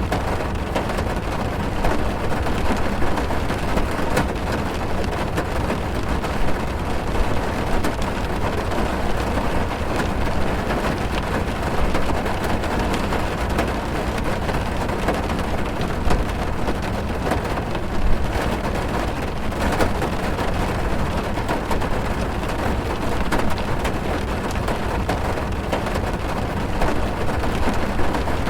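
Heavy rain drumming on a car's roof and windows, heard from inside the cabin: a dense, steady patter with a deep rumble beneath and a few louder drops standing out.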